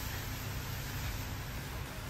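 Large plastic wrapping sheet rustling as it is pulled off a motorcycle, over a steady hiss.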